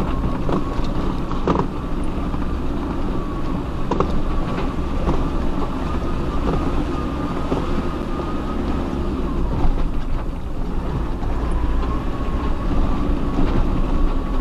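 Off-road 4x4's engine running steadily at low speed as it crawls over rough, rocky track, with a faint steady whine and several sharp knocks about half a second, a second and a half and four seconds in.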